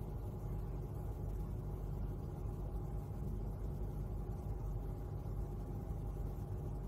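Steady low rumble with a faint even hum, unchanging throughout.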